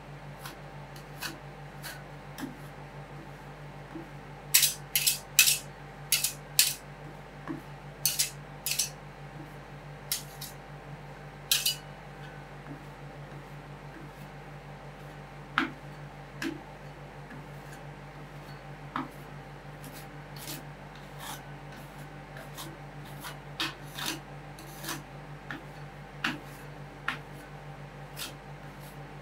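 Metal spatulas tapping, chopping and scraping on a rolled-ice-cream cold plate in sharp, irregular clicks, with a fast flurry of louder strikes about five to twelve seconds in, over a steady low hum.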